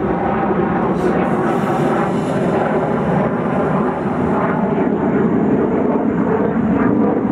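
Jet aircraft flying over, a loud, steady engine noise that holds at one level with no clear pitch.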